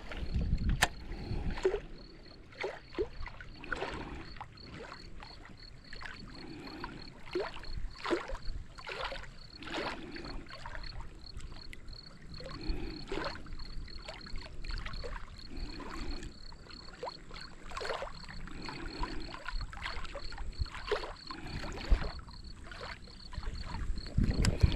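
Water lapping and splashing against a small fishing boat, with irregular light knocks on the hull and a faint steady high whine underneath.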